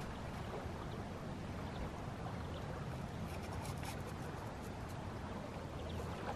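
Steady rush of wind and lapping water, with a few faint clicks about halfway through.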